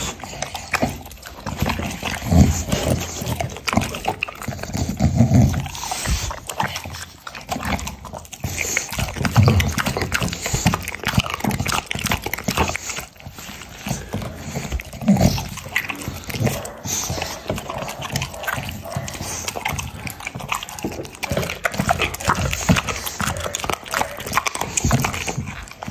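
A dog chewing raw chicken held to its mouth, with wet smacking and irregular, closely spaced chewing clicks throughout.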